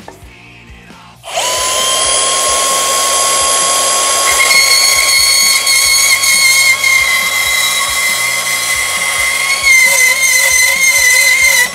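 Milwaukee M18 deep cut cordless bandsaw starting up about a second in and running through a cut in metal stock, a loud steady whine with several ringing tones. A higher ringing tone joins a few seconds later and wavers near the end, and the saw cuts off abruptly just before the end.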